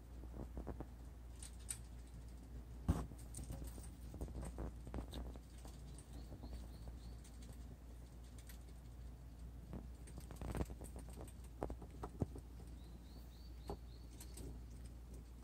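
Baby dwarf hamsters scrabbling about in wood-shaving bedding: scattered light scratches, rustles and clicks over a low hum. Two short runs of faint high chirps come about six and thirteen seconds in.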